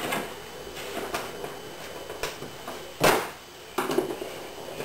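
Small metal hardware handled: light clicks and clinks of bolts, nuts and washers, then a screwdriver working a bolt head set in plywood, with a louder short scrape about three seconds in and another just before the four-second mark.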